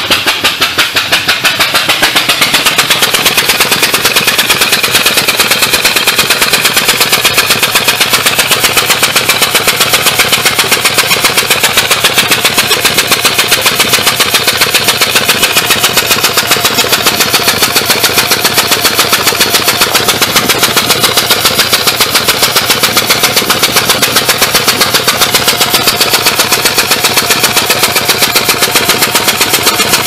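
Ford Ranger 4.0L V6 running with the number 4 spark plug out of its cylinder. The open plug hole blows out a rapid, even, loud popping on every compression stroke. It is a spark test on the misfiring cylinder, with the plug hanging on its wire and grounded to the AC compressor.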